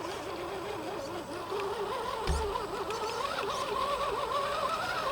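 Axial SCX10 II Honcho RC crawler's brushed electric motor and gearing whining under a constantly changing throttle, the pitch wavering and then climbing higher in the second half. A low thump about two seconds in.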